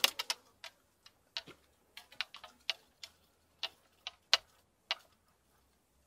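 Spinning fishing reel clicking: a run of sharp, irregular clicks, a few every second.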